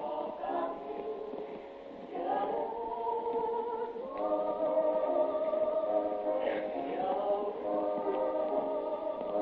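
Several singers' voices in harmony from a stage musical, holding long notes that grow louder about two seconds in. The sound is thin and muffled, as in a live recording made from the audience.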